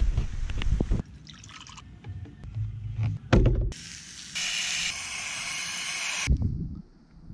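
Hose-end sprayer shooting a steady hissing jet of water for about two and a half seconds from just past the middle, cutting off sharply. Before it come bursts of low rumble and a loud thump.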